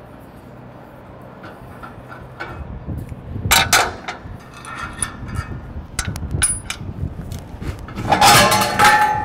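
Steel clinks and clanks as the cap of an AugerVac grain vac's cyclone receiver is unlatched and lifted off, with two loud knocks a little over three seconds in. Near the end comes a longer scraping, ringing clatter as the perforated metal backup screen is drawn up out of the cyclone.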